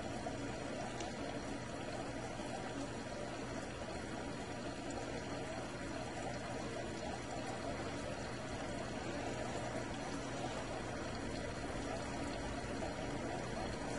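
Steady rush of running water, unchanging, with a faint low hum underneath.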